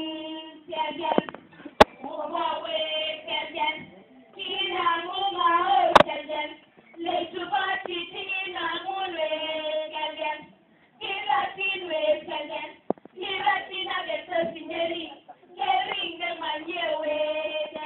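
A group of schoolchildren singing a Kalenjin poem in unison, in short phrases with brief pauses between them. Two sharp knocks cut through, about two and six seconds in.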